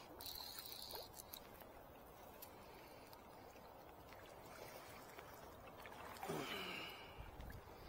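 Faint, steady rush of river water, with a short hiss just after the start and a brief grunt-like human vocal sound about six seconds in.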